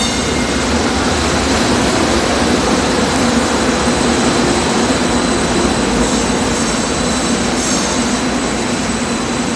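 St. Louis MetroLink light rail train pulling in alongside the platform, its wheels and motors making a loud, steady rumble as the cars roll past.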